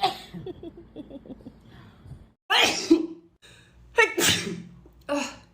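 A girl sneezing several times in a row in an allergy sneezing fit. Quick catching breaths lead into loud, sudden sneezes about two and a half and four seconds in, followed by a shorter one just after.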